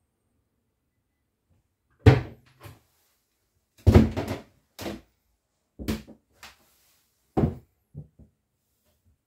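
A series of irregular knocks and thumps, the loudest about two and four seconds in, with lighter ones following roughly once a second.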